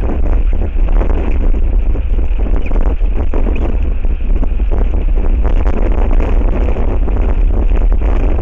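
Strong wind buffeting the outdoor camera's microphone: a loud, constant rumble that rises and falls with the gusts.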